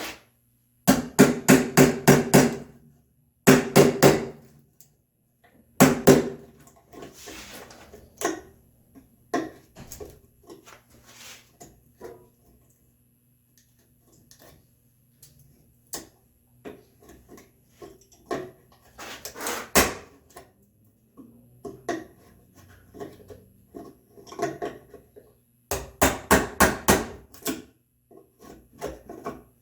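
Mallet striking a chisel to chop an angled mortise in red oak: runs of quick, sharp blows, several strikes each, with quieter scraping and light knocks between the runs as waste is cleared from the bottom of the mortise.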